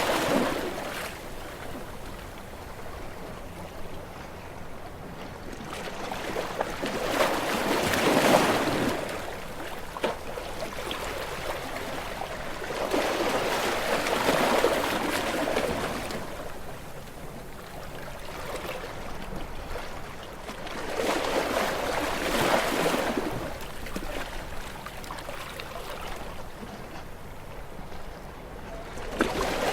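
Ocean waves breaking on a shore: a surge of surf about every seven seconds, easing to a softer wash between.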